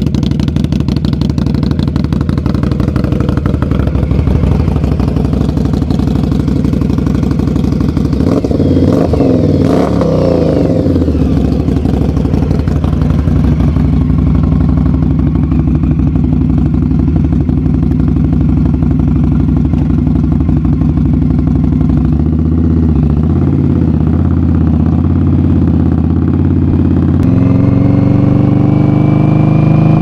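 Indian Scout Bobber's V-twin through a Vance & Hines 3-inch exhaust, idling and then riding at low speed. The pitch rises and falls once about a third of the way in, and climbs as the bike accelerates near the end.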